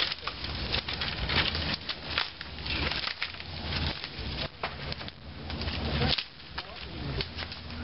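Dry sticks and branches being handled and laid on a shelter frame: irregular cracks and snaps of wood over a rustle of brush.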